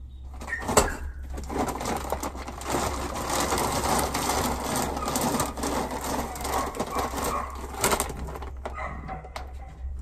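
Dry dog kibble rattling and its plastic food bag rustling as a cup is dug in for more food. There is a sharp knock about a second in and another near the end.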